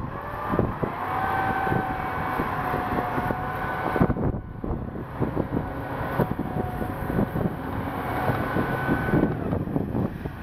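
Engine of a small tracked snow vehicle running under load as its front blade pushes snow, with a steady whine held through most of it.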